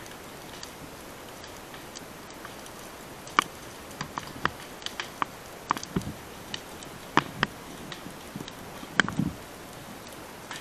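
Burning dry grass and brush crackling: irregular sharp snaps and pops over a steady low hiss, with the loudest snaps about three seconds in and again near the end.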